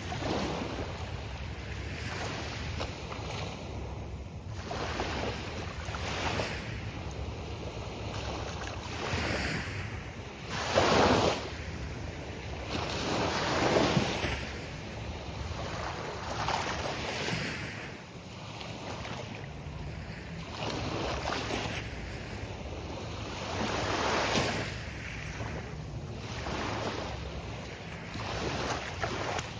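Gulf of Mexico surf breaking on a beach, waves swelling and washing in every few seconds, the loudest surges about 11 and 14 seconds in, over a steady low rumble of wind on the microphone.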